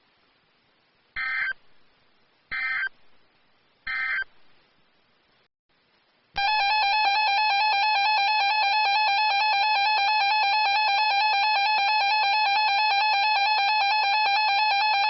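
Emergency Alert System header on a weather radio broadcast: three short bursts of SAME digital data tones about a second and a half apart, then, about six seconds in, the two-tone EAS attention signal starts and holds steady and loud for about nine seconds, announcing the next warning.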